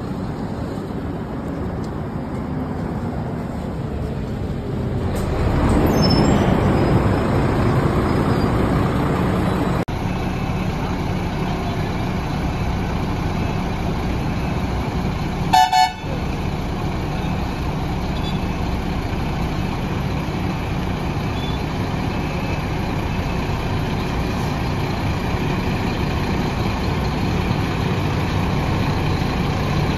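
Volvo B9R coach's rear-mounted diesel engine idling, with a short double toot of a vehicle horn about halfway through.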